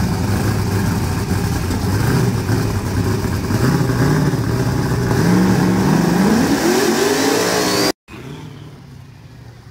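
X275 drag car's engine running loud at the starting line, its revs climbing from about four seconds in. The sound cuts off abruptly about eight seconds in, and only quieter background noise follows.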